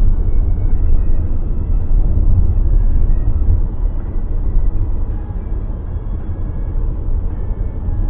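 Steady low road and engine rumble inside a moving car's cabin, easing slightly in loudness past the middle.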